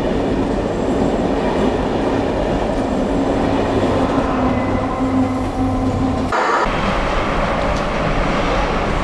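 Passenger train moving along a platform under a station roof: a steady rolling rumble with a low hum. About six seconds in the sound cuts abruptly to the broad rumble of another train approaching.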